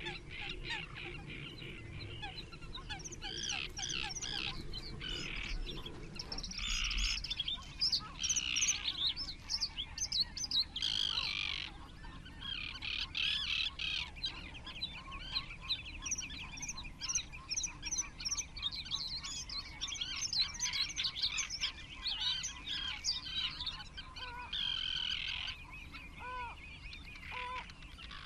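Wild birds singing and chirping together, a dense run of quick high notes and trills from several songbirds, with a few short, lower calls spaced apart near the end.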